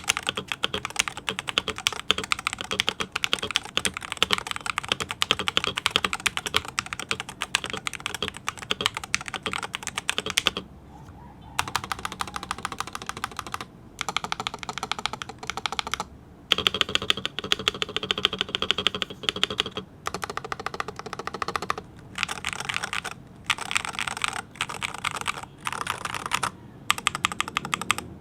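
Fast typing on an Attack Shark X65 HE Hall-effect keyboard: a dense run of keystroke clacks, broken by several short pauses, the longest about a second a little over a third of the way in.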